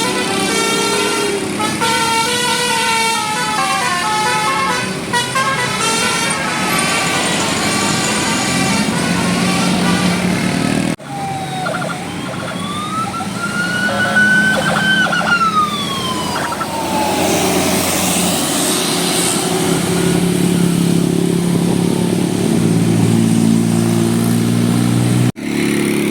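Indonesian bus 'telolet basuri' musical horns playing melodies: several pitched horn notes stepping up and down together, then a siren-like call that rises and falls, and later lower held horn notes. The sound breaks off abruptly twice.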